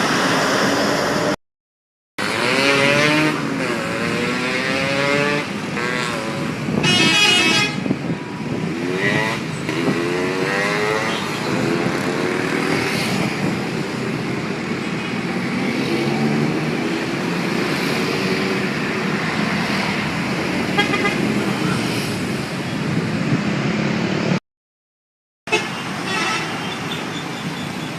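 Bus 'telolet' horns, multi-trumpet musical air horns, playing short wavering melodic tunes over traffic and engine noise. The sound breaks off into silence twice, briefly.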